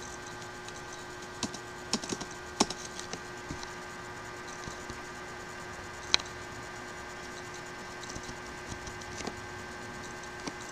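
Computer keyboard typing and clicks, a few scattered keystrokes at a time with pauses between, the sharpest single click about six seconds in, over a steady low hum.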